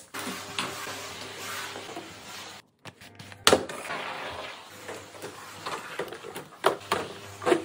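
Liquid floor cleaner pouring and splashing onto a tiled floor. After a short break, a steam cleaner's floor nozzle swishes back and forth over the tile with a steady hiss and low hum, knocking sharply a few times.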